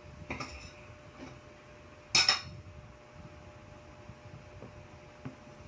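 Tableware handled on a table during a meal: one sharp clatter about two seconds in, then a couple of faint knocks, over a faint steady hum.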